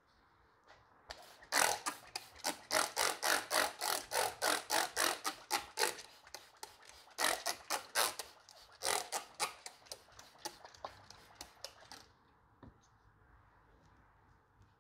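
Plastic trigger spray bottle spritzing in quick hissing squirts, about three a second, in three runs with short pauses, stopping about twelve seconds in.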